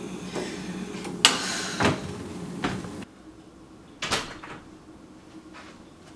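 Several sharp knocks and clatters of things being handled in a kitchen, the loudest about a second in and another about four seconds in, over a steady low hum that stops abruptly about three seconds in.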